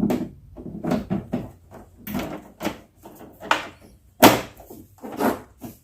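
Irregular knocks and clunks of hard objects being handled and set down, about a dozen, the loudest about four seconds in.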